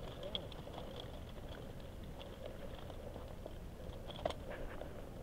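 Faint handling noise from a climber's clothing and gear on snow: light crunching and scattered small clicks, one sharper click about four seconds in, over a low steady rumble.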